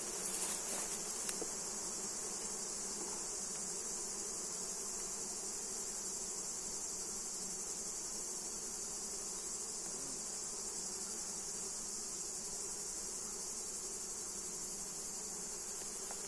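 Honeybees from an opened hive buzzing steadily, a low even hum, with a steady high-pitched insect trill over it.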